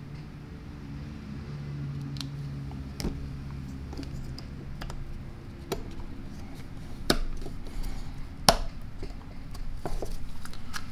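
Scattered small clicks and taps as the forward/reverse selector buttons of an Ingersoll-Rand 2131 air impact wrench are handled and pressed into its housing, engaging the reverse valve, with a steady low hum underneath. The sharpest clicks come about seven and eight and a half seconds in.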